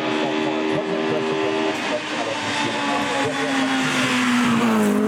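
Peugeot 106 GTI racing car's 1.6-litre four-cylinder engine running hard up the hill. The engine note holds steady at first, then falls in pitch over the last couple of seconds.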